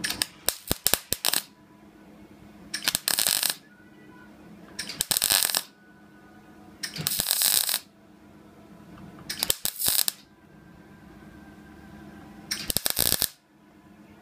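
MIG welder stitch-welding a patch into sheet-steel body panel: short bursts of arc crackle, about six of them, each under a second and roughly two seconds apart. A low steady hum runs between the bursts.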